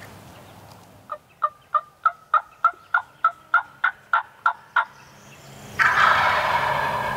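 A run of about a dozen evenly spaced turkey yelps, roughly three a second, then a wild turkey gobbler gobbling loudly and close about six seconds in.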